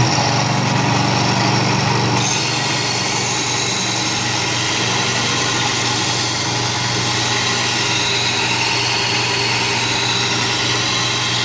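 Rexon belt sander running with a steady hum while the edge of a steel meat cleaver is ground on the moving abrasive belt. A steady hiss sets in about two seconds in as the blade touches the belt. This is the first step of sharpening, with the blade square to the belt to set a bevel of about 20 degrees.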